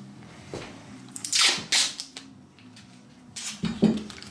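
Short bursts of rustling and crinkling from masking tape being handled on a puppy's ears, a pair about a second in and another group near the end.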